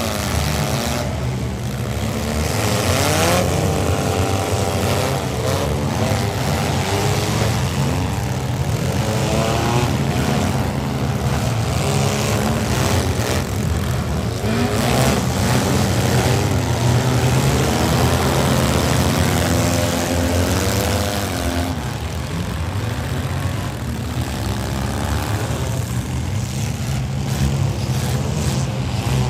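Several demolition-derby minivan engines revving hard at once, their overlapping pitches rising and falling as the vans push and ram each other.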